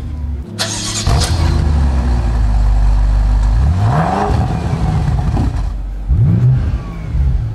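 BMW M5's 4.4-litre twin-turbo V8 idling, then blipped on the throttle. The revs rise and fall quickly about four seconds in, and again about six seconds in.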